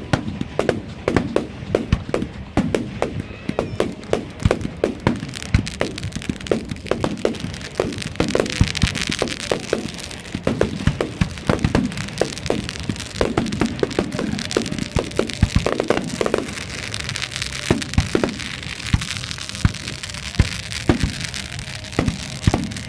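Professional display fireworks going off in a rapid, continuous run of shell bursts and bangs, with a spell of dense crackle in the middle.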